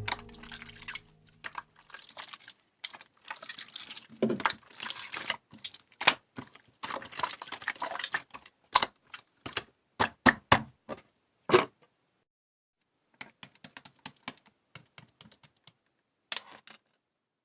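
Slime being squeezed and poked by hand, giving irregular sharp clicks and pops, with a short pause about two-thirds of the way through.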